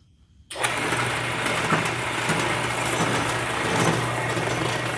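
Vintage Enco horizontal metal-cutting bandsaw switched on about half a second in, its motor, belt drive and blade coming straight up to speed and running loudly with a lot of vibrating and shaking. The owner suspects the shaking comes from the gear transmission, which should be running in an oil bath.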